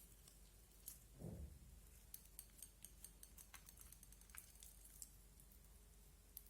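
Faint slime play: a soft low squish about a second in, then a quick run of tiny crackling clicks and a few scattered single clicks as the slime is pressed and stretched.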